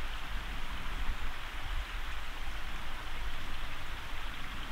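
Steady wind noise: an even hiss with an uneven low rumble of wind buffeting the microphone.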